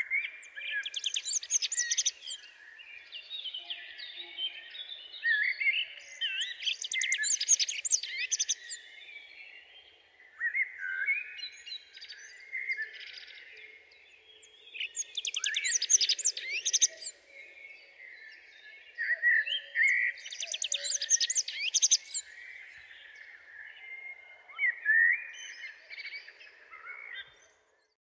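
A songbird singing: about six loud phrases of rapid trills and twitters, each a couple of seconds long, with softer chirps in between.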